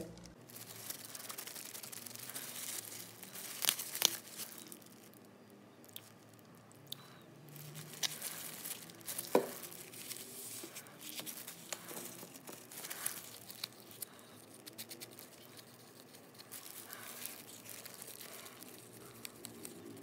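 Small cup of liquid silicone rubber being mixed with catalyst by hand: a small stick scraping and tapping in the cup, with scattered sharp clicks and rustling. The loudest clicks come about 4, 8 and 9.5 seconds in.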